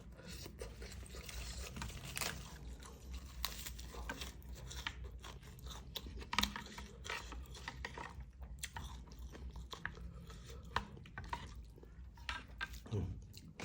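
A person chewing mouthfuls of beef noodle soup close to the microphone, with irregular wet clicks and smacks.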